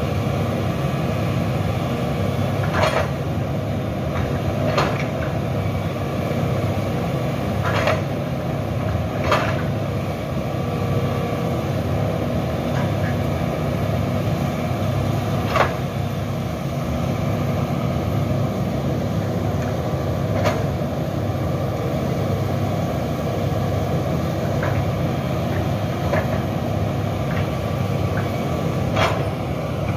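Hitachi EX200 hydraulic excavator's diesel engine running steadily under working load, with a steady whine over the low rumble. About ten sharp knocks come at irregular intervals as the bucket works through brush and stumps.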